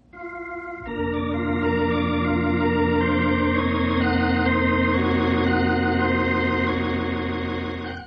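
Organ music bridge: a soft chord, then a fuller sustained chord that swells in about a second in and holds with shifting inner notes, cutting off near the end.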